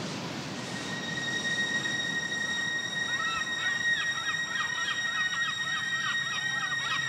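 Ambient music: the sound of ocean surf fades out about a second in and gives way to a high steady tone, joined about three seconds in by a flurry of short honking bird calls.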